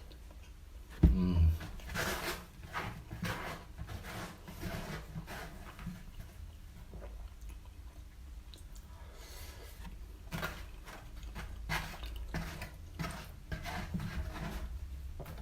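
Close-up chewing and mouth sounds of someone eating sauce-soaked chips and doner kebab meat: irregular wet smacks and clicks. A loud low thump about a second in.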